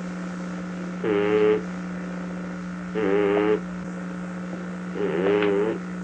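Sleeping Shar Pei snoring, each snore a short wavering pitched sound, three times about two seconds apart. A steady electrical hum runs under them.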